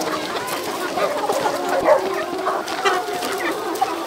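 A large flock of chickens calling all at once, many clucks and calls overlapping without a break.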